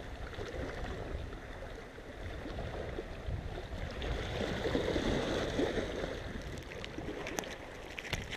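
Sea water washing and lapping against shore rocks, with wind rumbling on the microphone. The water swells louder about halfway through, and a few light clicks come near the end.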